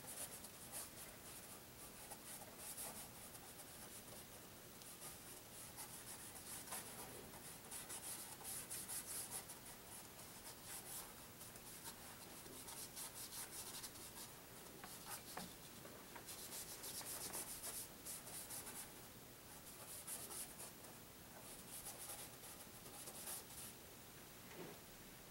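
Faint scratchy strokes of a paintbrush scrubbing thin oil paint onto Arches oil paper. The strokes come in short runs of quick back-and-forth rubs with brief pauses between them.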